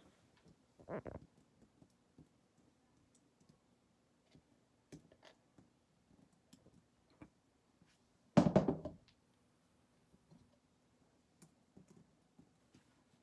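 Scattered light clicks and taps from handling a wet, paint-covered canvas and a paint stick on a plastic-covered table, with one much louder knock about eight seconds in.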